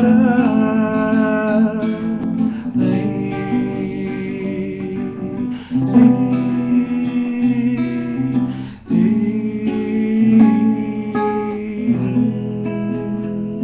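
Acoustic guitar strumming chords of a samba-pagode song, with a singer holding the last word of the chorus about two seconds in, then guitar alone.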